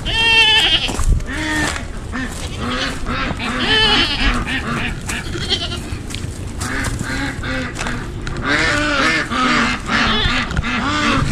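Several goats bleating again and again, short wavering calls that overlap, with a loud one right at the start and a thick cluster near the end.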